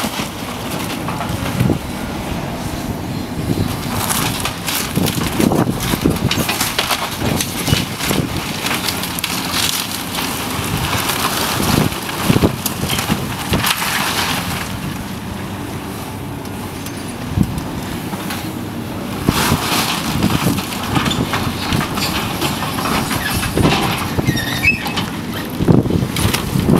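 A building being demolished: continuous crunching and cracking of debris as the structure is torn apart and crushed, with many sharp breaking impacts.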